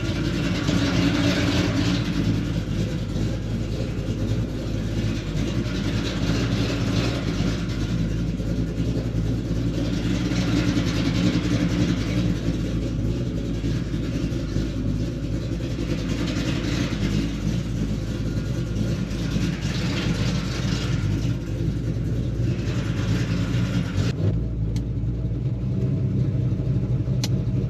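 1972 Chevrolet Chevelle SS's V8 engine running steadily at low speed, with a higher hiss that swells and fades every few seconds.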